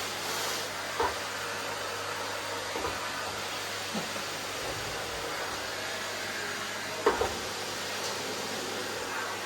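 Vacuum cleaner running steadily, with a few short knocks, the loudest a double knock about seven seconds in.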